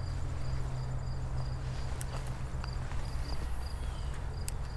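Crickets chirping in a steady, even pulse, two or three chirps a second, over the continuous rush of creek water running through rocky rapids.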